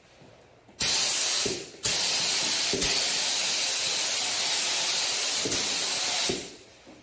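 Gravity-feed air spray gun hissing as it sprays clear coat: a short pass of about a second, then after a brief break a longer pass of about four and a half seconds.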